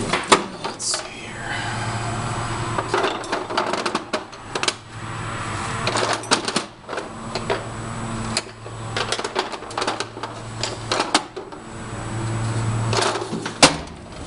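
Tools and hardware clattering and clicking as someone handles gear in the back of a van, with a low steady hum that comes and goes several times.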